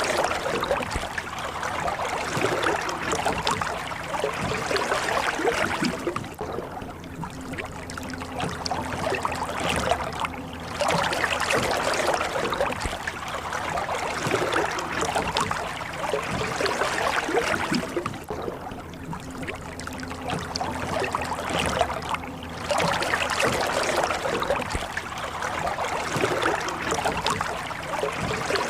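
Rowing a boat: oars dipping and pulling through water with continuous splashing and trickling that swells and eases every few seconds.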